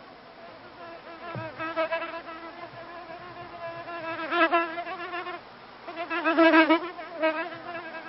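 Honeybees buzzing: a wavering hum that swells twice, loudest about four and a half and six and a half seconds in.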